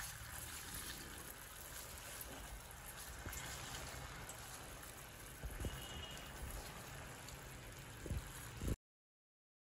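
Faint steady hiss of sugar syrup simmering in a steel pot on a low flame beneath a pile of rose petals. A couple of soft knocks come near the end before the sound cuts off abruptly.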